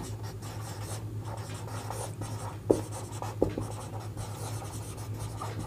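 Handwriting: a pen scratching across a writing surface in short strokes, with a couple of sharper taps about three seconds in, over a steady low hum.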